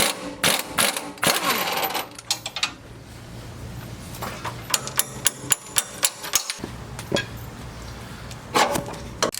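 Air tools working the track bar bracket bolts loose: bursts of rapid mechanical clicking and rattling, with a louder burst of noise near the end.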